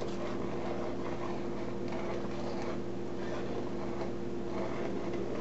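Steady mechanical hum from a room appliance, with faint, soft intermittent scraping as a spatula is swirled through soap batter in a mold.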